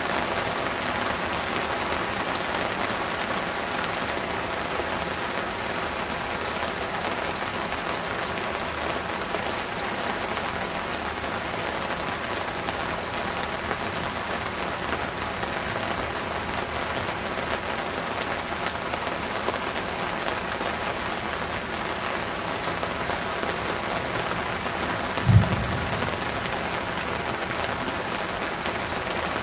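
Heavy downpour pouring down steadily during a thunderstorm. Near the end comes one short, loud, low thump.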